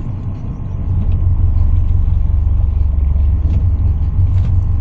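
Boat motor running steadily with a low rumble, getting louder about a second in as the boat moves along.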